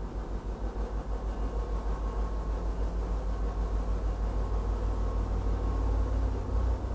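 Low, steady rumble of an MBTA diesel commuter train creeping slowly through the station, with a throbbing bass that grows a little louder near the end.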